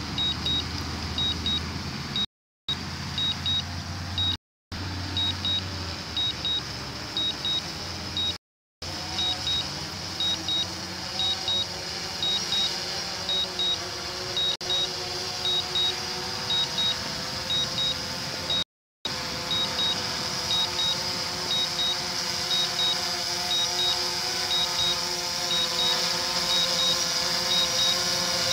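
DJI Phantom 4 quadcopter's propellers whining steadily as it descends in return-to-home, growing louder toward the end. Over it, the remote controller beeps in pairs about once a second, the controller's return-to-home alert. The sound cuts out briefly a few times.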